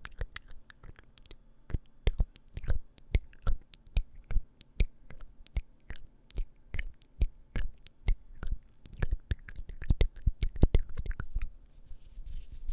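ASMR mouth sounds close to the microphone: wet clicks and smacks of lips and tongue, several a second in an uneven rhythm.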